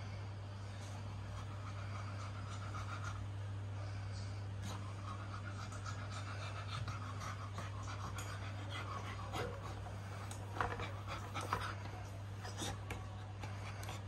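Heavily pregnant beagle panting fast and steadily, as a bitch does in labour, over a steady low hum. A few short rustles and scuffs come near the end as she shifts on the bedding.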